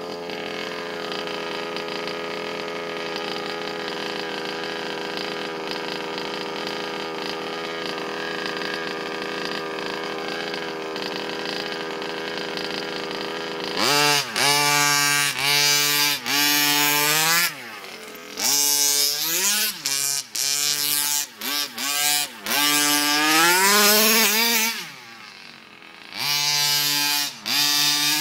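Two-stroke petrol engine of an HPI Baja 5B SS 1/5-scale RC buggy idling steadily for about fourteen seconds. It then revs hard in repeated throttle bursts, its pitch rising and falling with short drops in between, as the buggy is driven.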